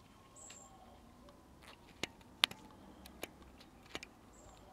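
A few faint, sparse clicks and ticks, the sharpest about two and a half seconds in, as of small handling knocks on a workbench.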